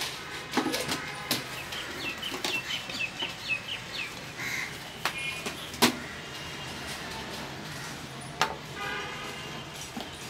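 Birds calling: a quick run of short, high chirps, then a few more calls later, with sharp clicks and knocks from plastic toys and building blocks being handled on a table.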